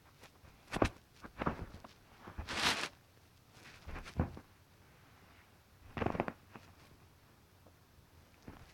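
Scattered soft knocks and scuffs, with a short rustling burst about two and a half seconds in: a Sphynx cat pawing and batting at a string close to the microphone.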